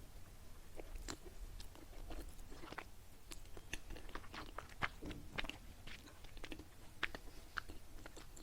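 Close-up mouth sounds of a person chewing soft, glutinous qingtuan: irregular wet smacks and clicks.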